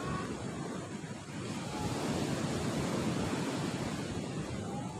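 Ocean surf breaking and washing up a sandy beach: a steady rush of wave noise.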